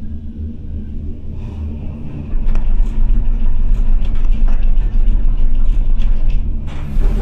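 Rumble of a gondola cable car cabin in motion on its cable, with scattered clicks and rattles. The rumble grows clearly louder and deeper about two and a half seconds in.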